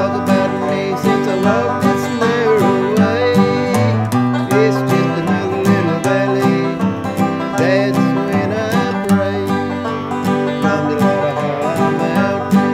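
Bluegrass music: an acoustic guitar and a banjo playing together, with quick plucked notes.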